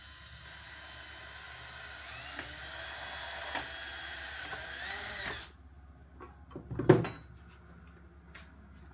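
Cordless drill running, boring a bolt hole through a plastic kayak paddle blade; the motor's pitch wavers under load for about five seconds, then it stops suddenly. About a second and a half later, a few light clicks and one sharp knock, the loudest sound.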